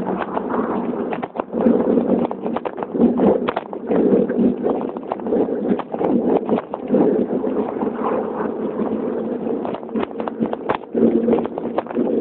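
Wind buffeting the microphone of a camera riding on a moving bicycle, a steady rushing noise, broken by many quick clicks and rattles as the bike runs over the road surface.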